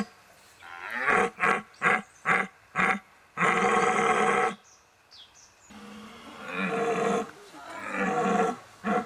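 A man imitates a rutting deer stag's roar through a long calling tube. First comes a run of about five short grunting calls, then a long drawn-out roar, and after a pause two more roars that swell up.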